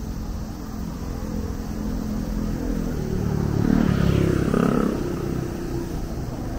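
Street traffic: a motor vehicle passes close by, growing loudest about four seconds in and then fading.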